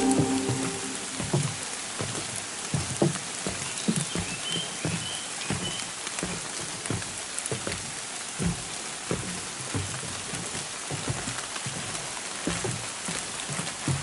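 Footsteps on wet wooden boardwalk planks, dull irregular knocks about twice a second, over a steady hiss of light rain on the forest leaves. A few faint high chirps come about four seconds in.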